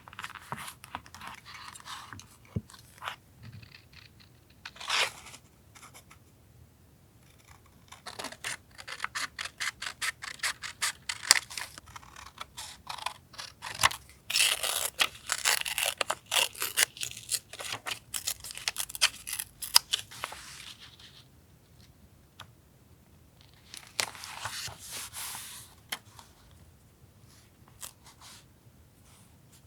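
Paper being handled and torn for a journal collage: crisp rustling, tearing and scraping in bursts with small clicks. The longest stretch runs from about 8 to 21 seconds in, with a shorter one near 25 seconds.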